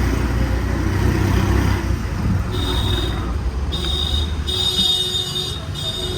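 Street traffic: a vehicle engine's low rumble, then from about halfway a series of short high-pitched tones that come and go several times.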